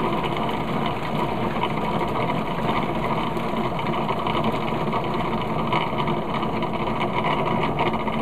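Food processor motor running steadily, its blade churning a thick mix of frozen banana chunks, dates and carob powder. The mix has stopped turning over, so the blade spins with little happening and the mixture needs pushing back down onto it.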